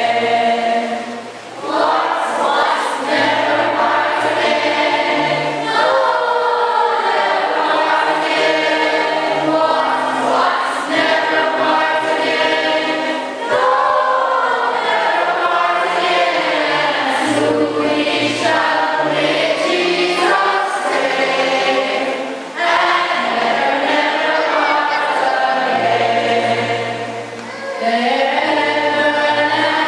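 A group of voices singing a hymn together in long held phrases, with brief pauses for breath between lines.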